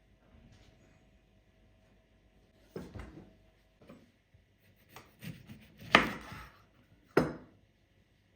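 A few scattered knocks and clatters of things being handled and set down, the loudest about six seconds in and another sharp one about a second after it.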